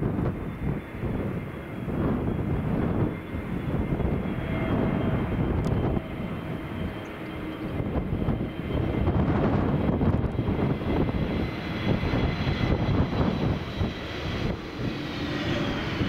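Jet engines of an Airbus A321neo airliner on final approach, a steady whine over an uneven low rumble.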